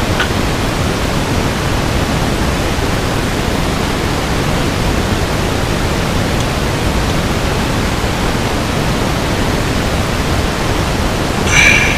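Steady rushing noise with a brief ringing clink near the end.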